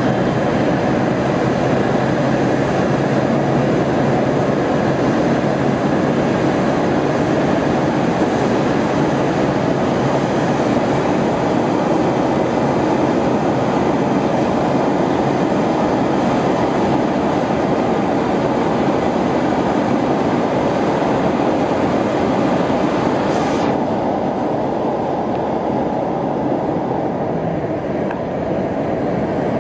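A row of gas burners in a brick furnace wall firing with a loud, steady rushing noise. The higher hiss drops away suddenly about three-quarters of the way through, leaving a duller rush.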